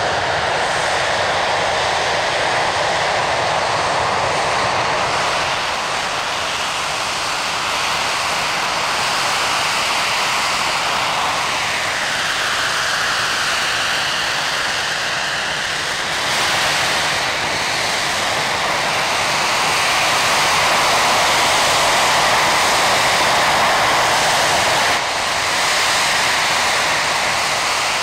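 BAC Lightning F.6's two Rolls-Royce Avon turbojets running on the ground during a static engine run: a loud, steady jet roar with a whine that dips and climbs again about halfway through.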